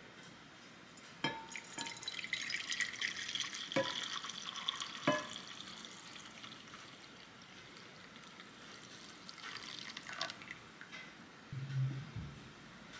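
Hot coffee jelly mixture poured in a stream from a saucepan into a glass container, splashing as the dish fills, with a few light clicks; the pour is strongest in the first half and then dies away.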